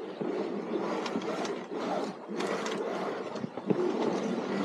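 Spinnaker halyard hauled up hand over hand, the rope running through its blocks in a quick series of pulls as the asymmetric spinnaker is hoisted.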